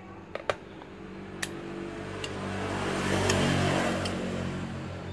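A motor vehicle passing by, its engine noise swelling to its loudest about three and a half seconds in and then fading. A few sharp clicks come from an amplifier circuit board being handled.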